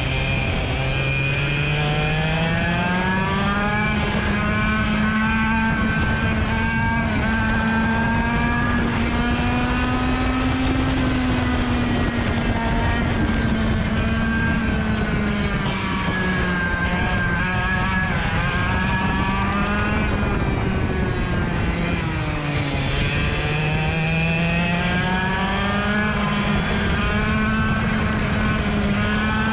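Rotax DSB two-stroke kart engine under racing load, its revs climbing hard near the start, held high, then sagging and rising as it backs off and accelerates through corners. The deepest drop in revs comes a little past two-thirds of the way through, before it climbs again.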